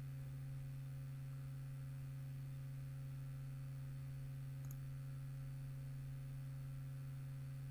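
Steady low electrical hum on the recording line, with one faint mouse click about halfway through.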